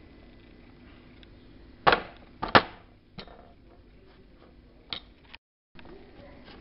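Metal spoon clinking against a ceramic plate while stirring a thick ground sesame, cocoa and honey mixture: a few sharp clinks, the two loudest close together about two seconds in, then fainter taps.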